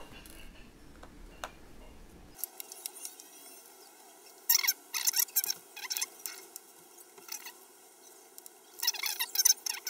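Small precision screwdriver turning screws out of a Dell XPS 15 9510 laptop's aluminium bottom panel. It gives two bursts of rapid squeaky scraping clicks, one about four and a half seconds in and one near the end.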